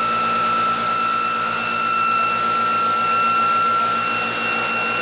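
Electric motor-generator test rig spinning, giving a steady high whine over a hum and hiss. A higher tone in the whine drops out about two seconds in.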